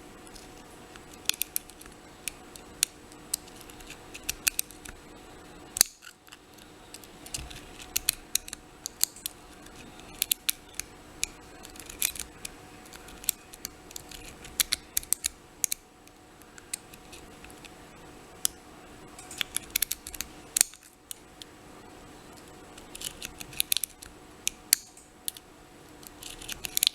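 Lock pick stroking and clicking against the pin stack of a Kasp 14040 six-pin padlock held under light tension: irregular clusters of small, sharp metal clicks.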